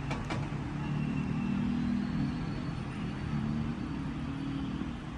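A motor vehicle's engine running as a steady low rumble, with two faint clicks near the start.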